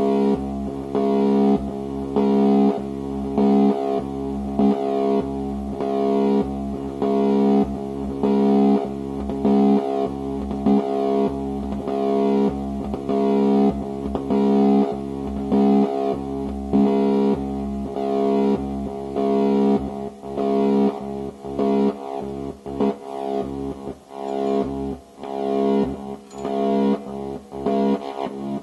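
Eurorack modular synthesizer patch sounding a low pitched tone that pulses in a steady rhythm, roughly once a second. From about twenty seconds in the pulses turn shorter and choppier, dropping away between notes.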